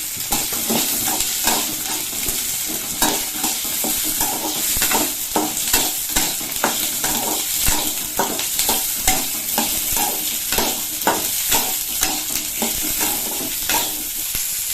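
Shallots frying in hot oil in a pan: a steady sizzle, with a stirring utensil scraping and knocking the pan about twice a second as they are sautéed.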